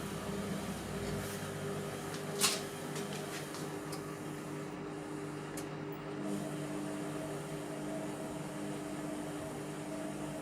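Indesit MTWC71252WUK washing machine running its Cotton 30 wash, its drum motor humming steadily. There is one sharp click about two and a half seconds in, and the pitch of the hum drops slightly about four seconds in.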